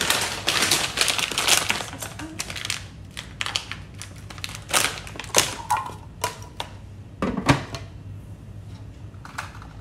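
A plastic bag of frozen vegetable gyoza crinkling as dumplings are shaken into a plastic food steamer and the bag is twisted shut, with many sharp clicks and knocks of the frozen dumplings and plastic steamer parts. There is a louder knock about three quarters of the way through as the steamer lid goes on.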